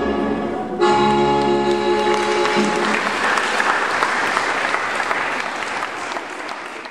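Jig dance music ends with a brief break and a held final chord about two and a half seconds in, followed by audience applause that fades out at the end.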